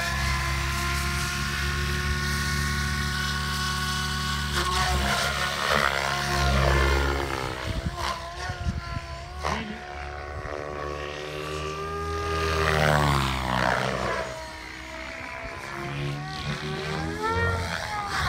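Radio-controlled helicopter flying. Its motor and rotor hold one steady tone for the first four or five seconds, then the pitch rises and falls again and again as it swoops past and manoeuvres.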